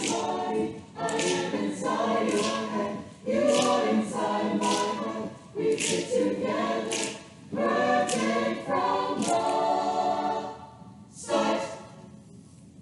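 Chamber choir singing in short, punctuated phrases with brief gaps between them, closing on one short final chord about eleven seconds in.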